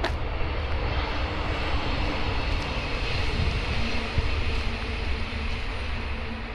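Aircraft engine droning steadily overhead, with a faint steady whine mixed in.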